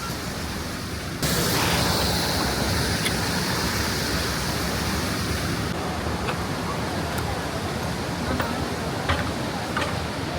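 Steady rushing roar of falling water from the Krka waterfalls, stepping up sharply louder about a second in.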